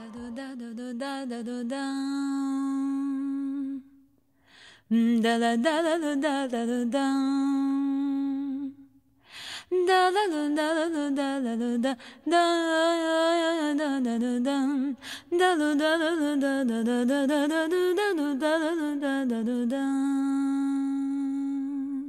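A woman singing a wordless vocalise without accompaniment: long held notes alternate with wavering, ornamented runs, in phrases broken by short pauses.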